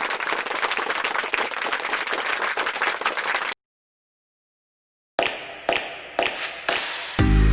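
A dense crackling patter, like applause or a crackling fire, that cuts off suddenly after about three and a half seconds. After a gap of silence, music starts with a few sharp hits, and a beat with heavy bass comes in near the end.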